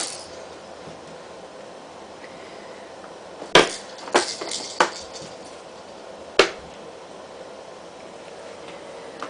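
About five short, sharp knocks or clacks of something hard: the loudest about three and a half seconds in, two or three quick ones just after, and another about six and a half seconds in.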